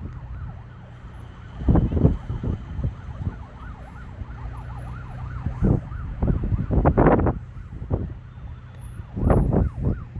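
A distant emergency-vehicle siren wailing in a fast yelp, its pitch rising and falling several times a second. Several loud gusts of wind buffet the microphone over it.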